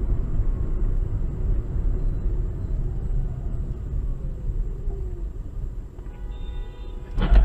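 Steady low road and engine rumble from inside a moving car, then a short steady horn-like tone about six seconds in, followed near the end by one loud collision impact from a vehicle crash at the intersection ahead.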